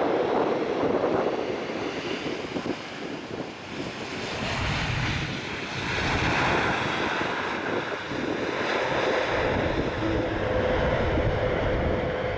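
Boeing 787-10 airliner rolling out on the runway just after touchdown, its jet engines running with a deep rumble that swells from about four and a half seconds in. A steady whine joins in the second half.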